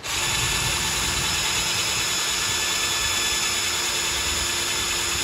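Black+Decker cordless drill running at a steady speed with a constant whine, its bit drilling out a rivet that holds a side strap tab on a fencing mask.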